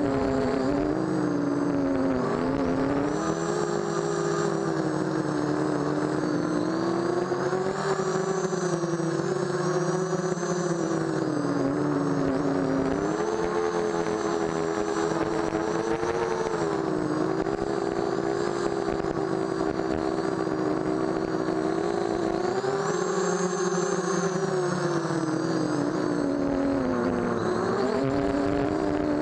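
A micro quadcopter's brushless motors (1811 2000 kV) spinning 5030 Gemfan propellers in flight, heard from on board. The motors make a steady whine whose pitch rises and falls every few seconds as the throttle changes.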